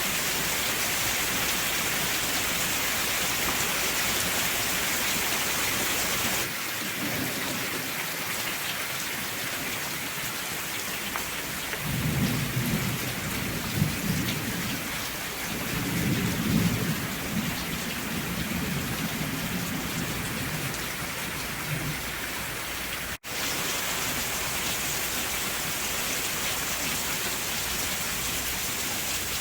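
Steady, heavy rain hissing, with low rumbles of thunder rolling through the middle. The sound drops out for an instant about two-thirds of the way through.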